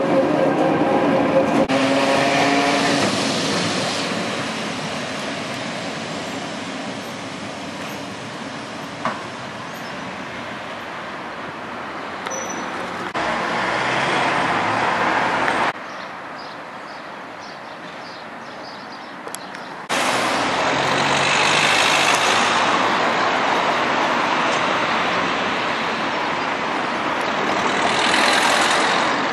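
Vintage tram running, heard from inside the car, with a steady whine at first; after a cut, quieter street noise, then in the last third loud road traffic noise that swells up twice as vehicles pass.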